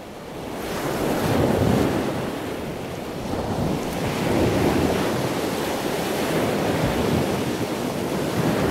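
Ocean surf: a rushing wash of waves that fades in at the start, then swells and eases a few times.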